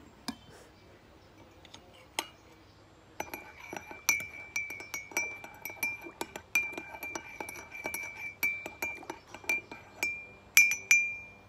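A teaspoon stirring sugar into masala tea in a white ceramic mug, clinking against the inside several times a second with a ringing note. It starts about three seconds in after a couple of single clinks, and the loudest few clinks come near the end.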